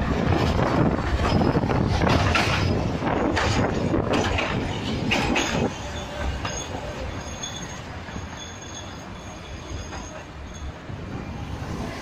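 Tram wheels clattering and squealing on the rails as an articulated tram curves through a track junction, a loud, rough rolling noise. About six seconds in it drops to the quieter running of a tram passing on straight track, with faint steady high squeal tones.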